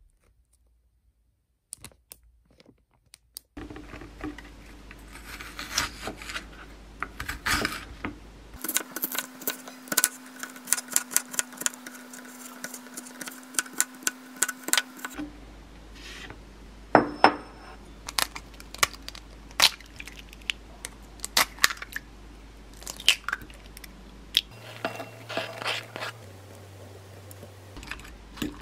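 A kitchen knife chopping onion on a plastic cutting board in quick, rapid strokes, among knocks and clinks of utensils and dishes. The first few seconds are nearly quiet apart from a few soft crinkles of a plastic wrapper.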